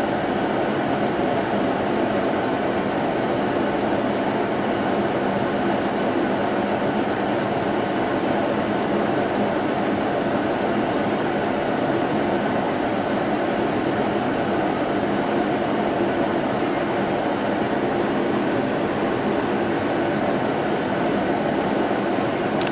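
Steady, unchanging drone of hum and hiss, like a machine running continuously, with no change in level or pitch.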